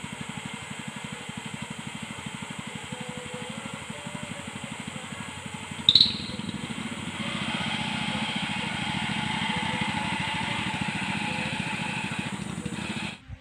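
A small engine running steadily with a fast low pulsing, growing louder from about seven seconds in; a single sharp click sounds near the middle, and the sound cuts off suddenly near the end.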